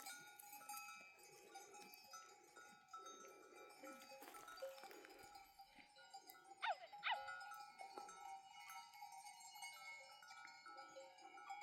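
Goat herd's bells ringing faintly and steadily, with a couple of short goat bleats about two-thirds of the way through.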